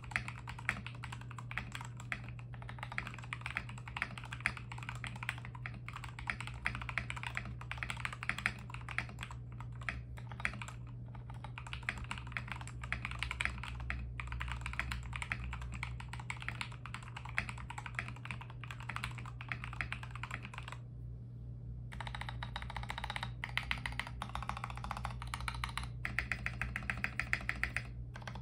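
Fast typing on a CIY68 65% mechanical keyboard with lubed Gateron Milky Red Pro linear switches and Iceberg XDA PBT keycaps (tape and case-dampener modded), a dense run of key clacks. About two-thirds in it stops for a second, then the stabilized large keys such as the spacebar are pressed repeatedly.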